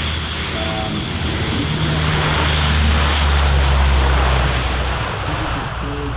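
Coulson C-130Q Hercules four-engine turboprop passing, a broad engine and propeller rumble with a low steady hum. It swells to its loudest a little past the middle, then eases off.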